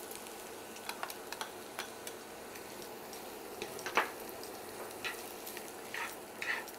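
Chopped onion, beans and carrot frying in oil in a pan: a steady, fairly quiet sizzle. A spatula stirring them scrapes and taps against the pan now and then, most sharply about four seconds in.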